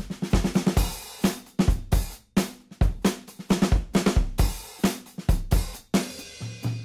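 Background music: a rock drum-kit beat of kick, snare and hi-hat, with a low sustained note coming in near the end.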